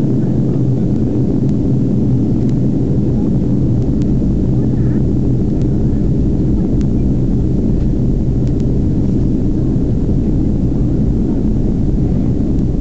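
Steady cabin noise inside a Boeing 767-300 on descent: a low, even rumble of engines and airflow heard from a window seat over the wing.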